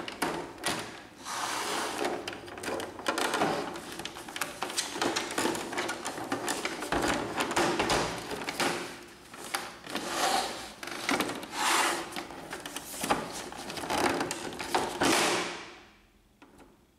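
Plastic scanner cover of an Epson XP-2100 printer being flexed and pressed into place by hand: repeated clicks, knocks and plastic scraping as its pins are pushed into their slots, stopping about a second before the end.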